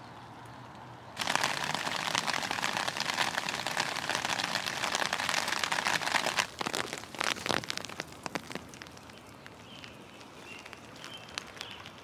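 Rain pattering: a faint steady hiss, then about a second in a sudden, loud, dense patter of close drops that lasts about five seconds before thinning to scattered single drips.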